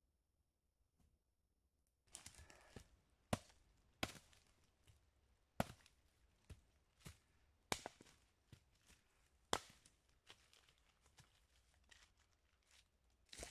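Small axe chopping dead wood: about a dozen sharp, irregular strikes starting about two seconds in, with quieter scraping and rustling between them.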